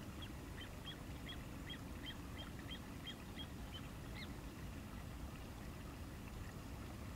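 A short, high call repeated about three times a second, from a bird or frog in the paddy, stopping about four seconds in after one slightly higher note. Fainter calls follow. A steady low outdoor rumble runs underneath.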